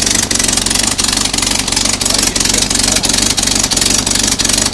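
Willys CJ3A's four-cylinder flathead engine idling steadily.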